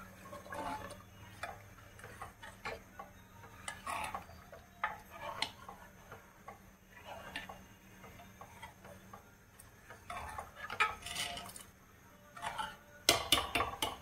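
Metal kitchen utensils clattering against pots and pans: irregular clinks and knocks, with the loudest quick run of strikes near the end.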